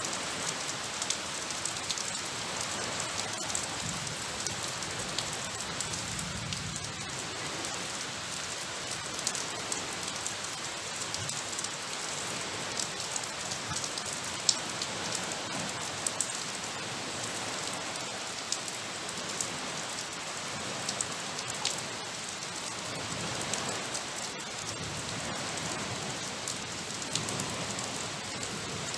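Steady rain falling, with many individual drops ticking sharply close by; one drop stands out louder about halfway through.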